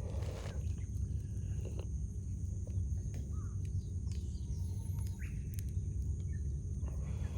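Campfire burning with scattered small crackles and pops, a few short bird calls above it, over a steady low rumble.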